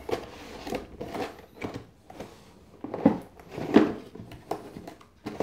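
Cardboard box and packaging being handled: a run of rustles, scrapes and light knocks, the loudest about three seconds in and again just before four seconds.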